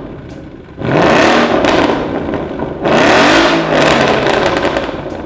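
Ford Mustang GT's 5.0 V8 revved twice from idle through an Armytrix valvetronic exhaust (X-pipe, mid pipe) with the valves open: two loud rev blips about two seconds apart, each rising in pitch and then falling back.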